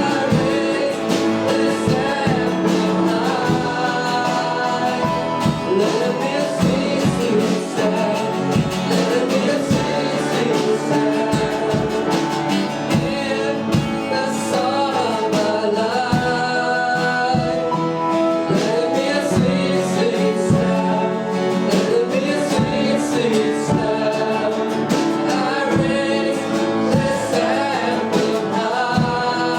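Church worship music: voices singing over guitar with a steady beat.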